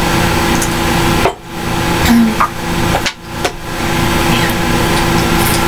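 Steady hiss and hum from a computer's built-in microphone, which gives a lot of feedback. Over it come brief handling sounds as a Ramune bottle is pressed down on a table to push its marble seal in, with a louder moment about two seconds in.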